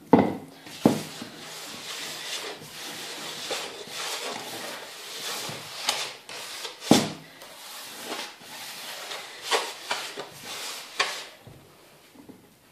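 A hand rubbing and raking moistened semolina in a wooden bowl: an irregular gritty rustle with a few sharper knocks against the wood, dying away near the end.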